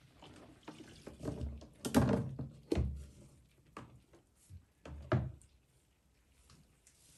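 Drum flaps of a top-loading Electrolux EWT1567VIW washing machine being unlatched and swung open by hand: a short series of clicks and metal-and-plastic thunks, the loudest about two and three seconds in.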